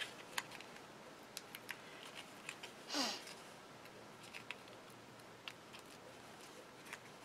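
Faint small clicks and rustles of foam adhesive dots being peeled off their sheet and handled with the fingers. One louder, scratchy peel comes about three seconds in.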